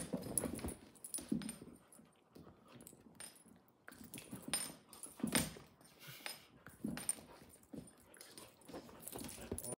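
Two dogs play-fighting: short, irregular dog noises come in spurts among scuffling and clicks.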